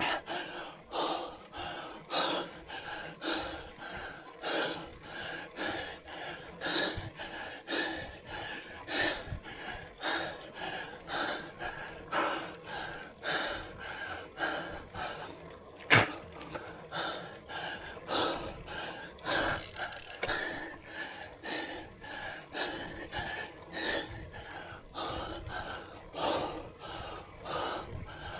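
A cyclist's hard, rhythmic breathing while climbing a steep grade, about two breaths a second, the sound of heavy exertion. A single sharp click about sixteen seconds in.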